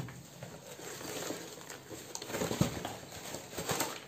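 Cardboard shoebox and tissue paper being handled and the box turned over: irregular rustling, scraping and light knocks.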